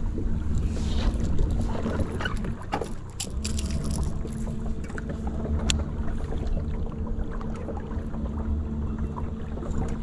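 Electric trolling motor humming steadily on a bass boat. It cuts out briefly about three seconds in and starts again, with scattered light clicks over it.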